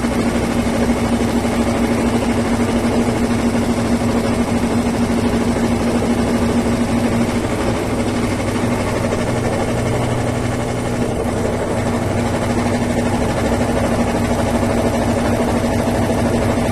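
Brastemp Ative 11 kg BWL11 top-loading washing machine spinning to drain the wash water before the rinse: a steady motor hum with a constant tone.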